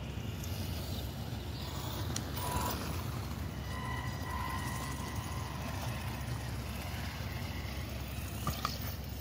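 Wind rumbling on the microphone, with the faint whine of the Wltoys 124018 6x6 RC truck's twin stock 550 electric motors. The whine rises for a moment about four seconds in, as the truck passes close by on the path.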